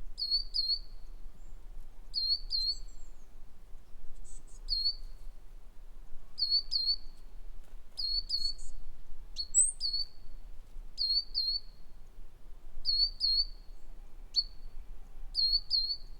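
A bird chirping: short high notes, mostly in quick pairs, repeated every second or two, with a few fainter higher calls in between.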